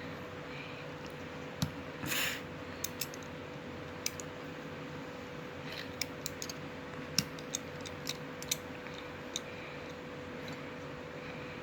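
Scattered small clicks and taps, with a brief rustle about two seconds in, from hands handling a plastic spinning-top toy and its packaging, over a steady electrical hum.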